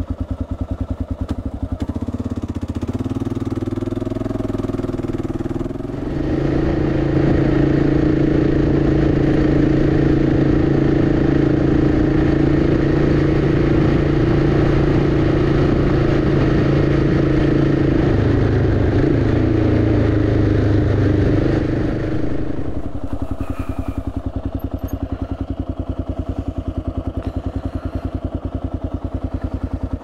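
Kawasaki KLR650's single-cylinder four-stroke engine running on the move, picking up speed over the first few seconds. It then holds a steady, louder run with a rush of noise, dips briefly, and eases back to a lower, quieter pace about 22 seconds in.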